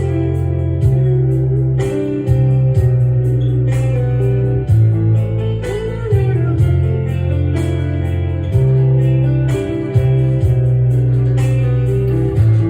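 Background music led by guitar over a steady bass line, with some notes bending in pitch.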